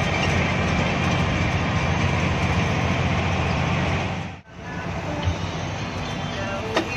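A Hino AK8 bus's diesel engine running steadily at road speed, heard from the cab, under heavy rain and tyre noise on the wet road. The sound cuts out abruptly about four and a half seconds in, then the same steady drive noise resumes slightly quieter.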